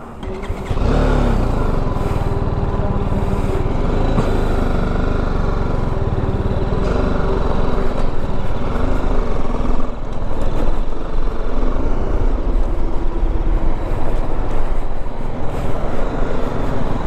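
BMW G 310 GS motorcycle's single-cylinder engine running under way, with steady road and wind noise; it starts up just under a second in.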